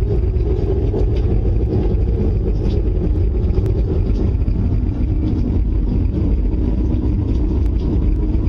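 Steady, loud low rumbling roar that does not let up, which the people recording fear is something coming close; one of them hears it as the wind.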